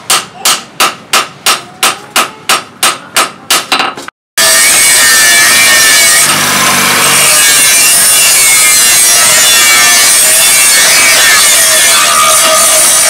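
A hand hammer strikes a hot steel blade, forged from a chainsaw blade, on an anvil, about three sharp blows a second. After about four seconds it cuts off suddenly and an angle grinder runs steadily, grinding the blade's edge.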